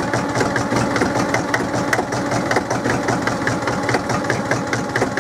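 International BD-264 diesel engine of a Drott 100 loader running just after a cold start with a rapid, even diesel clatter. It is still cold and not yet firing properly.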